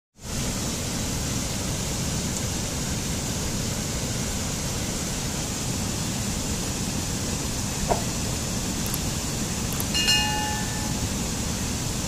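Mountain stream cascading over boulders: a steady rush of water that comes in abruptly at the start. About eight seconds in there is a short click, and about ten seconds in a bright chime of several ringing tones, the sound effects of a subscribe-button animation.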